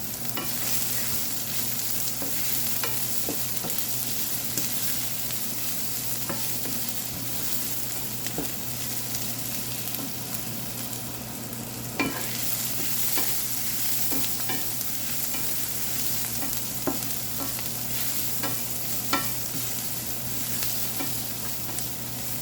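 Mushrooms and sliced sausage sizzling in hot peanut oil as they are stir-fried, with a few sharp clacks of the utensil against the pan and a steady low hum underneath.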